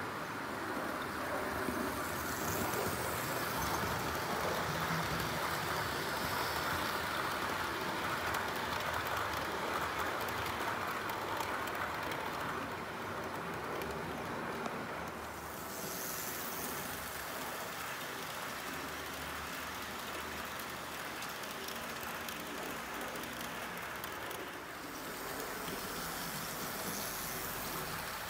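Liliput model train, the ÖGEG 52.1198 steam locomotive model hauling green passenger coaches, running along the layout's track: a steady rolling rattle of small wheels on model rails, with fine clicks throughout.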